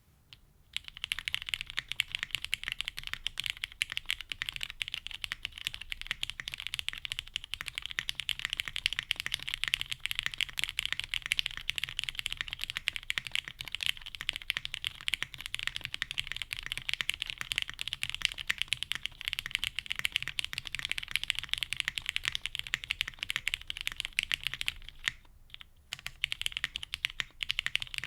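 Steady fast typing on a 7V by GOK mechanical keyboard, built plateless with lubed Cherry MX Black Hyperglide linear switches, Durock V2 stabilizers and iNKY x Domikey Silent Forest keycaps. The keystrokes start about a second in and run as a dense clatter, with a brief pause near the end.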